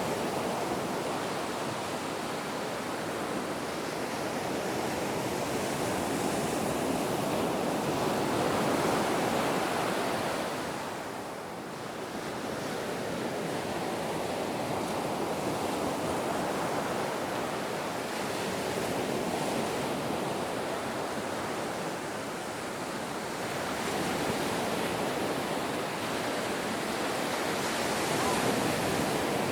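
Ocean waves washing in, a continuous rushing that slowly swells and eases, dipping briefly about eleven seconds in.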